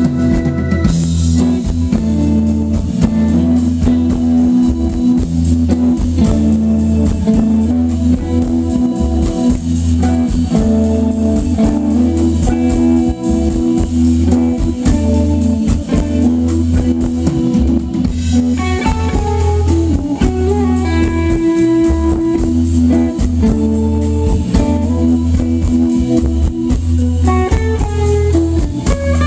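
A live band playing blues: a Telecaster-style electric guitar over a drum kit and keyboard, heard loud through the stage PA, with a stepping melodic lead line in the second half.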